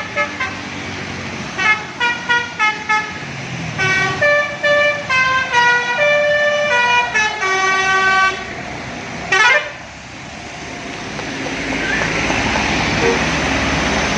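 A bus's multi-tone musical 'telolet' air horn playing a tune of quick stepped notes, first short rapid toots and then longer held notes. After about nine seconds it gives way to the bus's engine and road noise growing steadily louder as it approaches.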